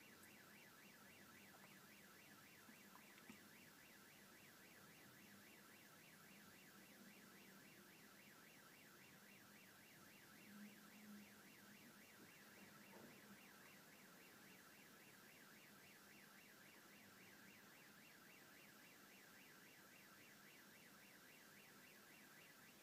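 Car alarm sounding faintly, a fast, evenly repeating electronic warble that cuts off near the end.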